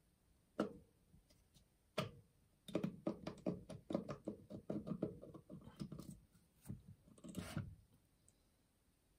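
Handling noise from a cordless drill's brushless motor rotor being worked out of the tool's plastic housing: two light knocks, then a few seconds of quick small clicks and scrapes that stop once the rotor comes free.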